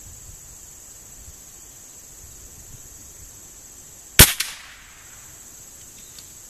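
A single shot from an Anschutz 1913 .22 rimfire target rifle about four seconds in: one sharp crack with a short echo right after. The shot hits a matchhead on the target and lights it.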